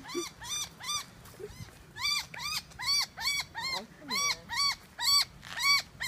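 A little dog yapping in short, sharp barks, evenly repeated about three times a second, with a brief pause about a second in, at a small bird that is swooping it.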